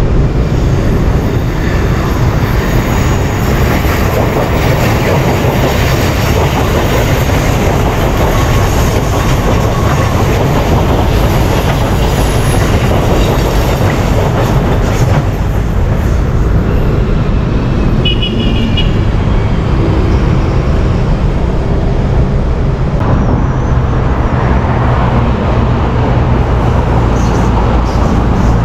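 Electric commuter train running on the rails, a loud steady rush of wheel and track noise. The sound changes abruptly about 23 seconds in.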